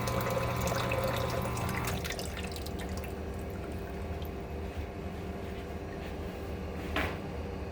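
Total One coffee machine's rinse cycle: water streaming from its three spouts into a pitcher over a steady machine hum, which stops about two seconds in. Then a quieter hiss, and a brief knock near the end.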